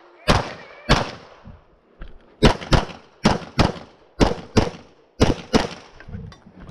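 Glock 34 9mm pistol firing a string of about ten shots, mostly in quick pairs roughly a third of a second apart: double taps on targets.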